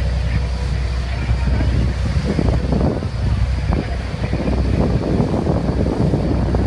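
Wind buffeting the microphone aboard a moving tour boat, over the steady drone of the boat's engine and water rushing along the hull.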